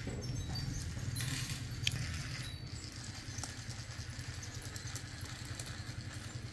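A steady low mechanical hum, with a few light clicks and a short rustling hiss about a second in.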